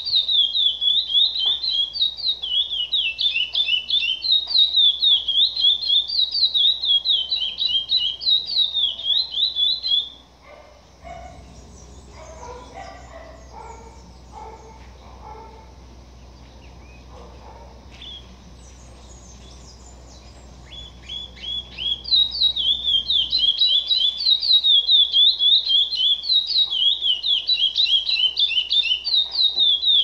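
Curió (chestnut-bellied seed finch) singing a long, fast run of high whistled notes for about ten seconds. The song stops for about twelve seconds, with only faint scattered chirps, then starts again about 22 seconds in.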